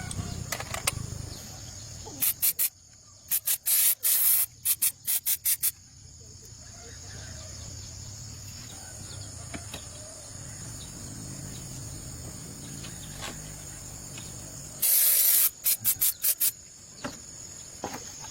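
Short bursts of hissing spray in quick runs, a cluster of a few seconds early on and a second cluster near the end.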